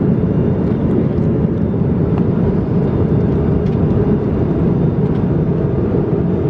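Steady airliner cabin noise in flight: the constant low rumble of the engines and airflow heard inside the passenger cabin.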